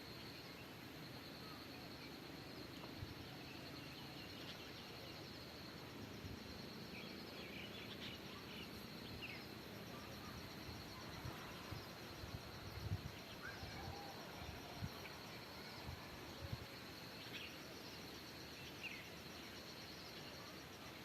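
Faint outdoor nature ambience: a steady high insect drone with a fast-pulsing insect call above it, a few short bird chirps scattered through, and several soft low thumps around the middle.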